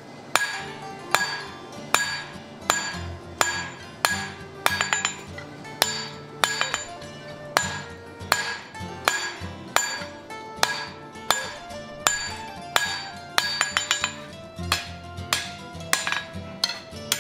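Picard 1500 g Swedish hand hammer striking red-hot steel on an anvil, about one to two ringing blows a second with a few quick double and triple taps. The bar is held half on, half off the anvil edge, forging a notch in a box-jaw tong blank. Background music plays under the strikes.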